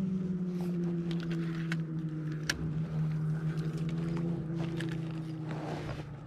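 Boat motor humming steadily, its pitch sinking slightly and the hum fading out near the end, with a few sharp clicks over it.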